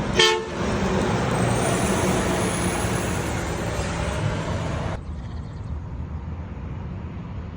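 Road traffic going past, a steady rush of vehicle and tyre noise. It opens with a brief loud toned blip, and the noise eases about five seconds in.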